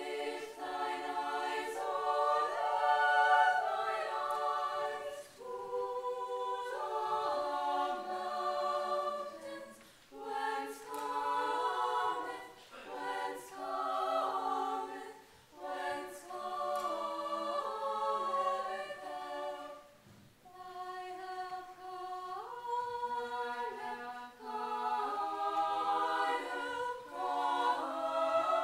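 A choir of young women's voices singing unaccompanied, held notes in several lines at once, in phrases broken by short breaks about 10, 15 and 20 seconds in.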